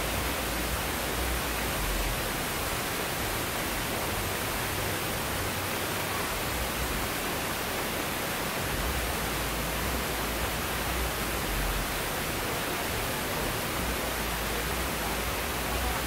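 Steady rushing of a waterfall and rocky cascade, an even hiss of falling water with an uneven low rumble underneath.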